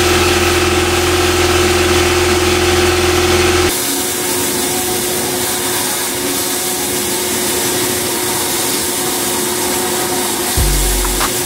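Abrasive blasting in a sandblast cabinet: the blast gun gives a loud, steady hiss of air and grit against a steel steering spindle. A motor hum runs under it for the first few seconds, then stops.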